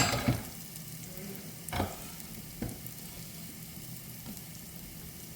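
Minced garlic going into a hot, oiled pan: a loud sizzle flares up as it hits. The frying then settles into a steady sizzle, with two knocks of a utensil against the pan as it is stirred, about two and two and a half seconds in.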